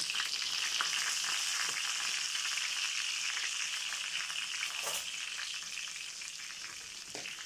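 Spatchcocked chicken frying in butter in a pan, a steady sizzle that slowly fades. Two light clicks, about five seconds in and near the end.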